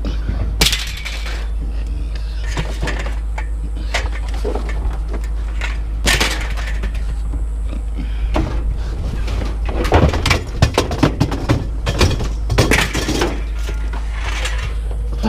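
Scrap items being thrown off a truck onto a scrap pile: a series of clanks and crashes, busiest about ten to thirteen seconds in, over a steady low rumble.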